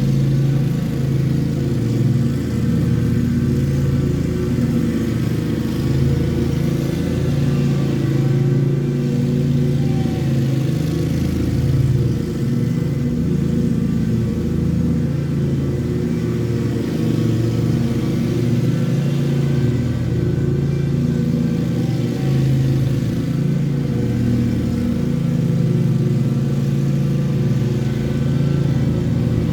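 Lawn mower engine running steadily under load while cutting grass, its pitch wavering slightly.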